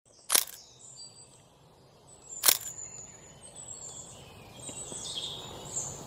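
Rainforest ambience of high-pitched bird chirps and trills over a faint background hiss, broken by two sharp clicks about two seconds apart, the first just after the start.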